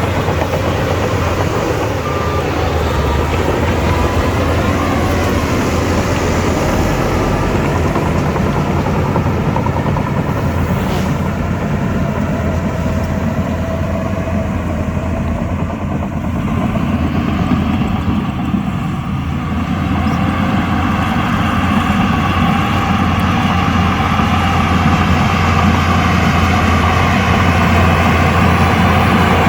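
Shantui DH17C2 bulldozer's diesel engine running steadily while working, growing louder and higher in pitch about two-thirds of the way through as it takes on more load.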